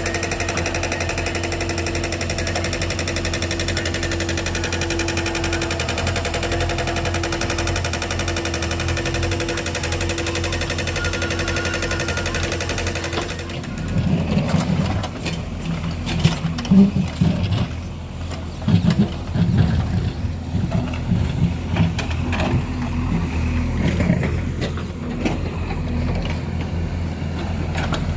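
JCB 3DX backhoe loader's four-cylinder diesel engine running. It is steady at first; about halfway through the high hiss falls away and irregular, louder low surges of the engine take over.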